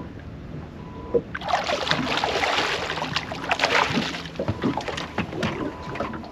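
A hooked fish thrashing and splashing at the surface beside a small boat, starting about a second and a half in and going on in rapid bursts.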